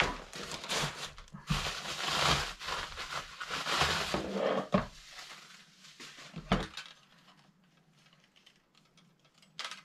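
Rustling and crinkling of packaging as softbox light stands are taken out and handled, with a thump about five seconds in and another around six and a half seconds; the last few seconds are mostly quiet.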